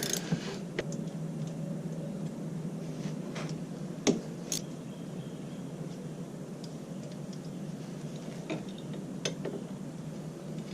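Scattered metallic clicks and clinks of hand tools on the bolts of a motorcycle's shaft drive, as the bolts are taken out; a sharper knock about four seconds in.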